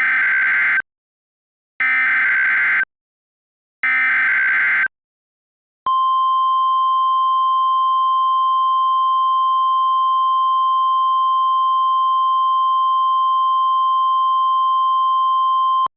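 Emergency Alert System opening: three one-second bursts of warbling data tones (the SAME header), each followed by a second of silence, then a steady single attention tone near 1 kHz held for about ten seconds.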